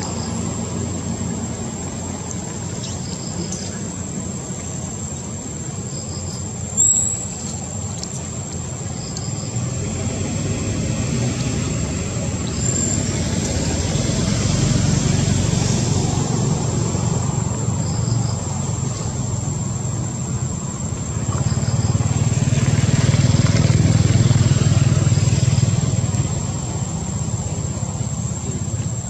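Outdoor background noise: a steady low rumble that swells about halfway through and again near the end. A thin, steady high whine and faint short high chirps every few seconds sit above it, and there is one brief sharp sound about a quarter of the way in.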